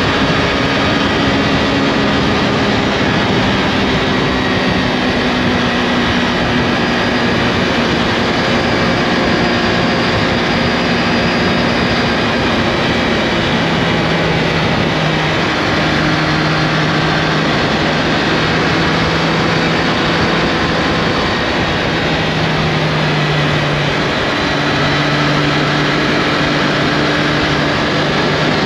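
Triumph Tiger Sport 660's three-cylinder engine running at riding speed under a steady rush of wind. The engine note shifts about halfway through, then holds steady with a couple of brief breaks.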